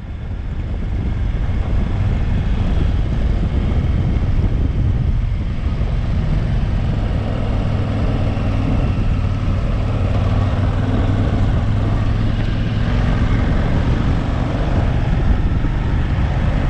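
Motorcycle engine running at a steady cruise while riding, with wind rushing over the helmet-mounted microphone; the sound fades in over the first second.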